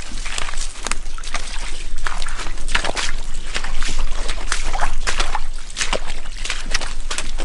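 Footsteps sloshing and splashing through shallow floodwater, an irregular run of wading steps.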